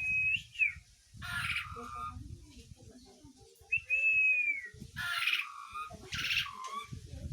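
Javan pied starling (jalak suren) calling: long clear whistles that arch and fall away at the end, alternating with harsh, scratchy chatters. There are about two whistles and three chatters, with a low rumble underneath at times.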